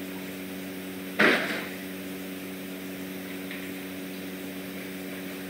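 A steady electrical or machine hum in a small room, with one short noisy burst about a second in.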